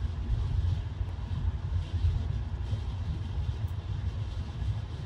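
Steady low road rumble and engine drone heard inside a car cabin at highway speed.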